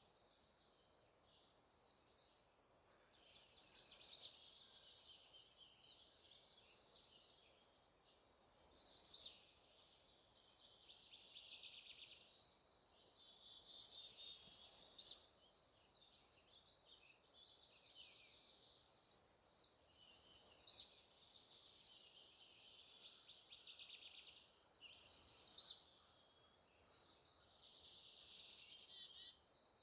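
Songbirds singing: one bird's loud, high phrases, each ending in a quick run of notes, come about every five to six seconds, with quieter song in between.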